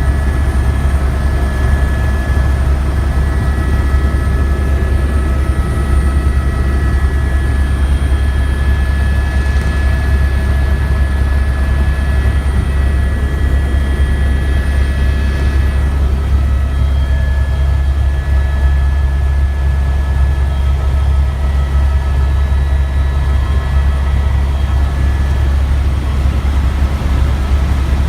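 Tour helicopter in flight: a steady, loud, low drone from the rotors and engine, with a thin steady whine above it.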